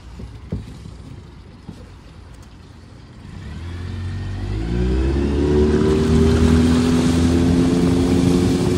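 2013 Yamaha 8 hp four-stroke outboard, fitted with a 9.9 hp carburettor, throttled up: after a few light knocks it revs up about three seconds in, its pitch rising over two seconds and then holding steady at high speed with water rushing past the hull.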